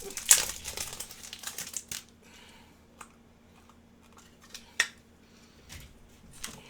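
Trading cards and their plastic sleeves being handled and sorted on a table. A busy flurry of rustling and clicking for about two seconds, then a few separate light clicks and taps, the sharpest just before five seconds in.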